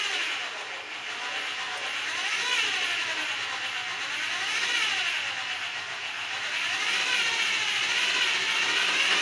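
Electric drill spinning a wooden broom handle while a utility knife blade is held against the turning wood, scraping a shallow groove into it. The drill's whine rises and falls in pitch several times as its speed changes.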